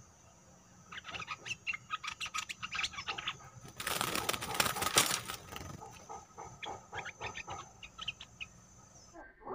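Bulbuls calling in quick runs of short, sharp chattering notes, with a loud burst of wing-flapping about four seconds in as a wild bulbul flutters against the caged decoy bird; more scattered calls follow.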